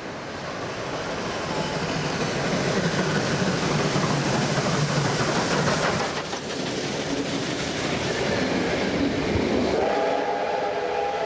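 A K-class steam locomotive passing at speed, growing louder as it approaches and goes by about six seconds in, followed by the rushing and clatter of its carriages over the rails. Near the end a steady chord-like steam whistle sounds.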